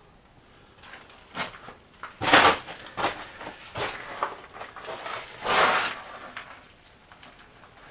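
Feet scuffing and crunching on loose rock and gravel, with a few small knocks and two louder scrapes, about two seconds in and again around five and a half seconds.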